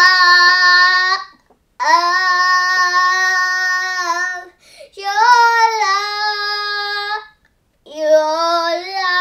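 A young girl singing unaccompanied, holding long drawn-out notes: one phrase ends about a second in, then three more sustained phrases follow, each broken by a short breath.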